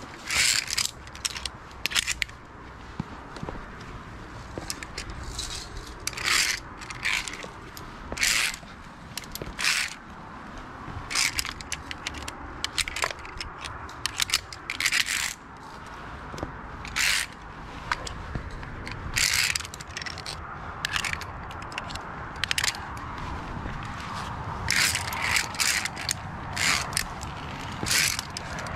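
Via ferrata climbing gear on a steel safety cable: short, bright metallic scrapes and clinks, coming irregularly every second or two as the climber's carabiners and hands slide along the cable and knock against the iron rungs. A low, steady rumble runs underneath.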